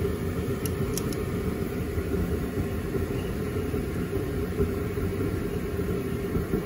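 A steady low machine hum, with a couple of faint metallic clicks about a second in from bolts and a hex key being worked into an exhaust muffler's inlet flange.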